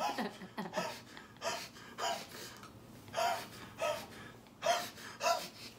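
A man laughing hard in short, high-pitched, breathy bursts, some coming in quick pairs.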